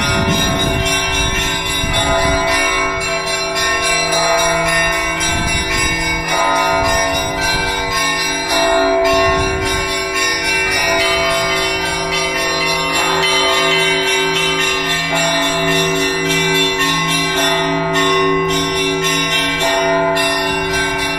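Church bells ringing: several bells of different pitch struck over and over, their notes ringing on into each other, with a low bell pulsing at an even beat.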